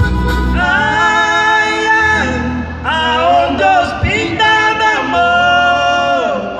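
Two men singing a música caipira (sertanejo raiz) song in harmony, holding long notes in three phrases, with acoustic guitar and electric keyboard accompaniment.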